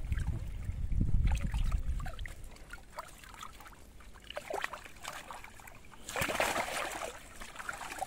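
Water sloshing, trickling and dripping as a wet cast net is handled waist-deep in water, with a burst of splashing about six seconds in as the net is lifted and water streams out of it.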